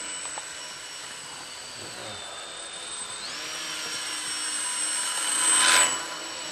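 Small electric indoor RC model aeroplane's motor and propeller whining, stepping up in pitch about three seconds in as the throttle opens, then swelling to its loudest as the model passes close near the end.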